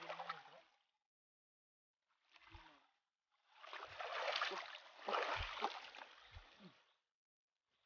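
Feet wading and splashing through shallow water over river stones: one short splash about two and a half seconds in, then about three seconds of splashing steps with a few dull knocks.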